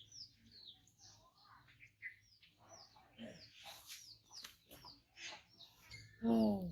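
A small bird chirping over and over, a short high chirp falling in pitch about three times a second. There are light clicks and rustles in the middle, and a person's voice sounds briefly and loudly near the end.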